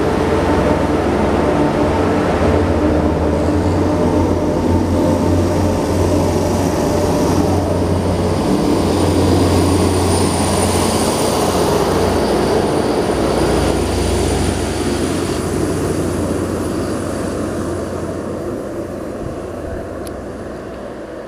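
Class 150 Sprinter diesel multiple unit pulling away, its underfloor diesel engines running under power with a steady low hum. The sound fades gradually over the last several seconds as the train draws off.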